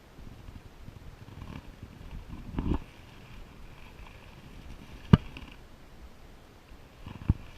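Three separate knocks over a low rumble: a dull one about two and a half seconds in, a sharp, loud one about five seconds in, and a third near the end.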